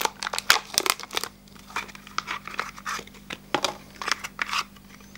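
Plastic bag crinkling and tearing as it is pulled open by hand, thickest in the first second or so. Scattered crackles and light clicks follow as the plastic tray holding the ink cartridge is handled.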